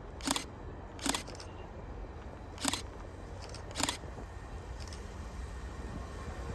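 Four sharp clicks at irregular intervals, with a few fainter ones between, over a steady low rumble of outdoor background noise.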